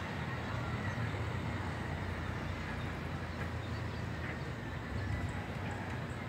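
Steady outdoor city ambience: a constant low rumble of distant traffic, with a few faint, short high-pitched calls.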